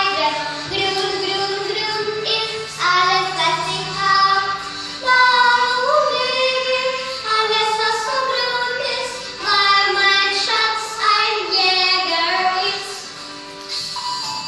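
A group of young girls singing a German-language song together in short phrases, growing quieter near the end.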